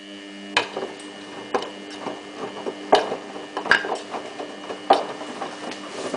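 Samsung WF8804RPA front-loading washing machine running its drum motor with a steady hum of several held tones, which starts just as the sound begins. Sharp clinks come about once a second as the tumbling jeans hit the drum.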